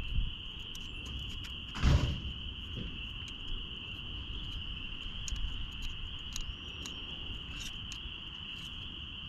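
A steady, high-pitched chirring of insects, with a knock about two seconds in and faint scattered clicks from handling parts.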